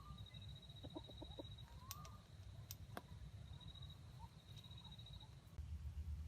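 Faint chicken clucking: a quick run of short clucks about a second in and a couple of brief rising calls. Under them run a steady thin high tone and a low rumble that gets louder near the end.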